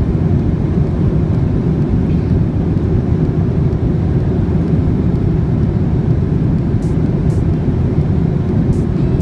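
Steady low rumble and rush of a Boeing 787's cabin in flight, the engines and airflow heard from a passenger seat. A few faint ticks come near the end.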